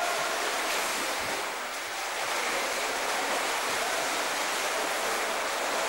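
Swimmers splashing down the lanes of an indoor pool just after the start of a race: a steady wash of water noise.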